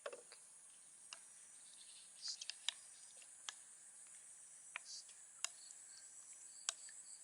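Faint steady high-pitched chirring of insects, with scattered light clicks and taps, about eight in all, several clustered a little over two seconds in.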